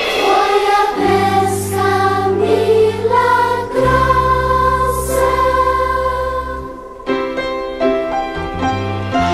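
Music: a choir singing a slow melody over long held bass notes that change every couple of seconds. About seven seconds in, the sustained singing gives way to shorter, lighter notes.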